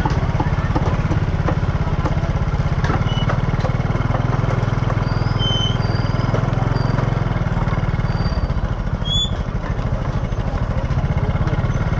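A small engine running steadily with a low, evenly pulsing rumble, with a few short high chirps in the middle.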